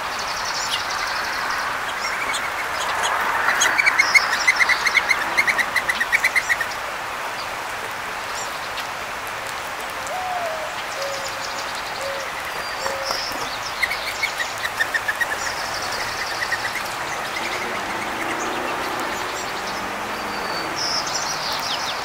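Wild songbirds singing and calling over a steady background hiss. A rapid run of repeated notes comes twice, the loudest bird sound. High thin calls come at intervals, and a soft low four-note phrase falls near the middle.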